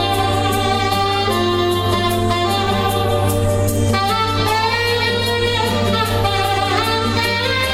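Background music: a saxophone melody over a held bass line and a light, steady beat, with the bass note changing near the end.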